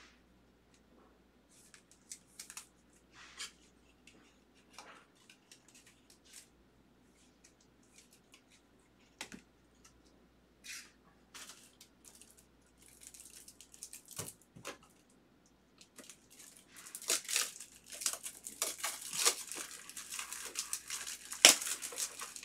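Foil wrapper of a trading-card pack being torn open and crinkled by hand. Scattered soft clicks and taps of cards being handled come first; about two-thirds of the way in, the crinkling starts and grows denser and louder toward the end.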